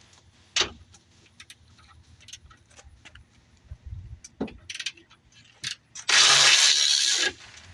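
Scattered metallic clinks and taps of hand tools working on car suspension parts, then a loud hissing burst that lasts just over a second, about six seconds in.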